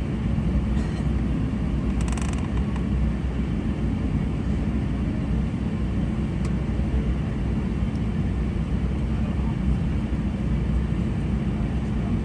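Steady low drone inside a parked airliner's cabin at the gate, from the aircraft's running air and power systems. A brief clatter about two seconds in.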